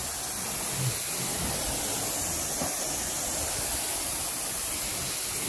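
Carpet-cleaning extraction wand working the carpet: a steady hissing rush of the machine's spray and vacuum suction.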